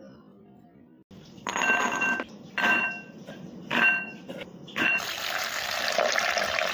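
Kitchenware clattering in four short bursts about a second apart, each leaving the same ringing metal tone. A steady rush of running water follows and cuts off suddenly at the end.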